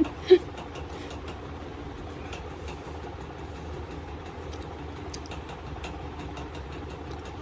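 A child's short hummed sound just after the start, then a steady low hum with scattered faint ticks.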